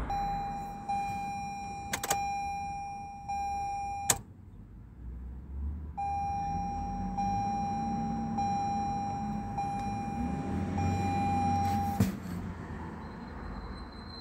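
Toyota RAV4 dashboard warning chime: a steady electronic tone with short regular breaks. It sounds for about four seconds and is cut off by a sharp click, then sounds again for about six seconds until another click stops it.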